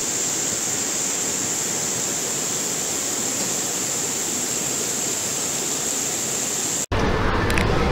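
Steady, even hiss with a thin high tone held through it, stopping abruptly near the end.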